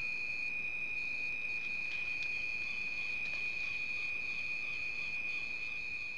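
Night insects such as crickets trilling steadily: one continuous high, even trill, with a second, higher trill that pulses on and off. Faint chirps join about two seconds in, along with a couple of small clicks.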